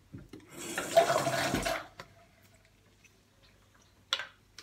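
Bathroom tap running briefly, about a second and a half of water, then one short sharp knock near the end.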